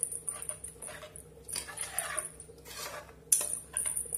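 Metal spoon scraping and clinking against the sides and bottom of an aluminium pressure cooker while stirring a thin curry. The clinks repeat throughout, with a sharper, louder one about three seconds in.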